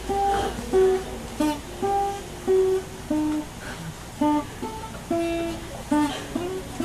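Acoustic guitars playing a slow melody of single picked notes, about one or two notes a second.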